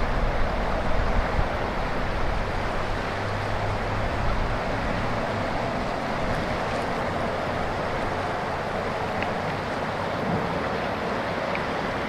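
Steady rushing of the Ishikari River's flowing water.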